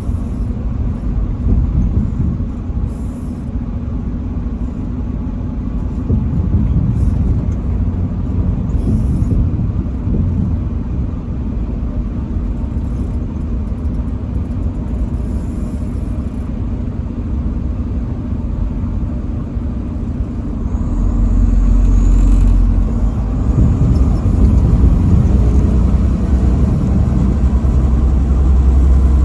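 Semi truck driving on the highway: a steady low rumble of engine and road noise that grows louder and deeper about two-thirds of the way through.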